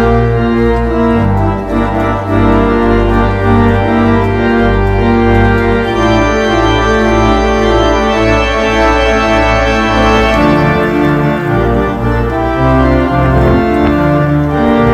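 Organ music: sustained chords held for a second or two at a time, the bass notes shifting under them.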